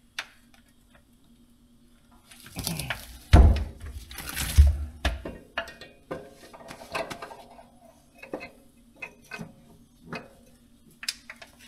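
Metal clinks and clatter of tools and engine parts as the next piston is fitted into the engine, with a scraping stretch and two heavy knocks about three and a half and four and a half seconds in.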